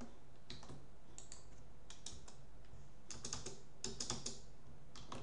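Computer keyboard keystrokes in short, irregular bursts: a handful of key presses at a time with pauses between.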